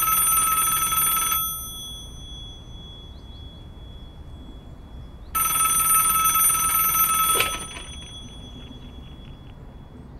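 A telephone ringing twice, each ring a steady electronic trill about two seconds long. The second ring is cut short by a click as the handset is picked up, and a few faint handling ticks follow.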